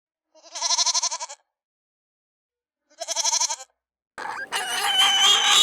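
A sheep bleating twice, each a wavering call of about a second with silence between. About four seconds in, a harsher, noisier animal call begins.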